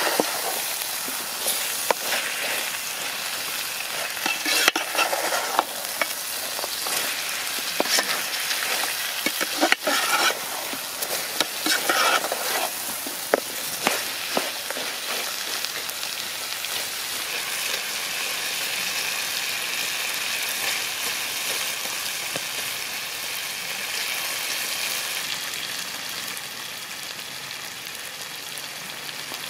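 A large metal pot of chicken curry sizzling and bubbling over an open fire, with a metal ladle scraping and clinking against the pot as it is stirred through the first half. After that it is a steady, even sizzle.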